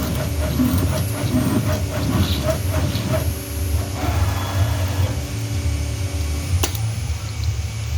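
JCut 6090C CNC router at work, its 5.5 kW spindle running with a steady low hum while cutting. A series of short knocks in the first three seconds, a higher tone that comes in about halfway and fades, and one sharp click near the end.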